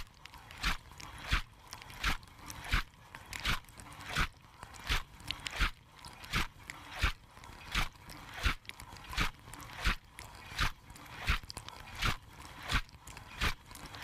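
Dishwasher wash cycle heard from inside the machine: sprays of water hit in a regular beat, about three every two seconds, as the rotating spray arm sweeps its jets past.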